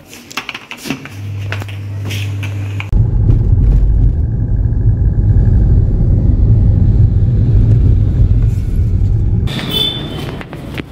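Loud low rumble of a car on the move, cutting in suddenly about three seconds in and easing off near the end. Before it there is a steady low hum with a few clicks.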